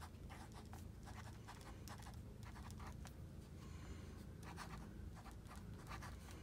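Rose gold acrylic ink pen writing by hand on a small lined notepad: faint, quick, irregular scratching strokes of the pen tip on paper as letters are formed.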